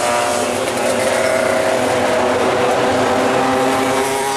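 Several racing motorcycle engines running at high revs on the track, a steady drone of overlapping engine notes.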